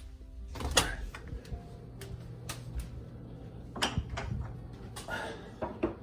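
Scattered short clicks and knocks from handling things close by, over a low steady hum.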